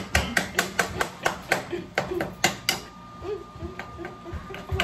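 Rapid, evenly spaced sharp taps or knocks, about four a second.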